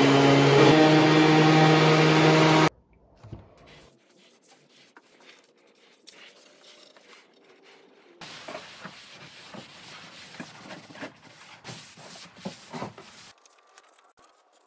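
Bosch random orbital sander running steadily on a pine board, its motor a loud even hum that cuts off about three seconds in. After that come faint handling sounds, then a stretch of soft rubbing with small clicks.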